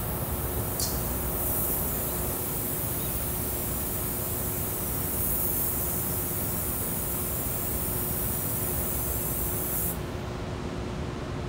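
Gravity-feed spray guns hissing steadily as automotive paint is sprayed, over a constant low rumble and a steady hum. The spray hiss cuts off about ten seconds in.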